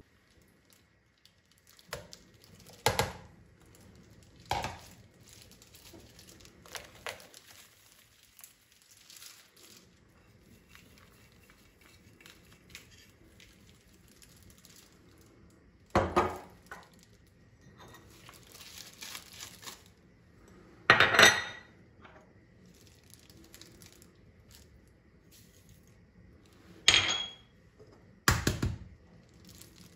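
Kitchen handling sounds: about eight separate knocks and clinks of ceramic dishes and a glass jar against a stone countertop and a ceramic mixing bowl, the loudest about two-thirds of the way through, with soft rustling in between.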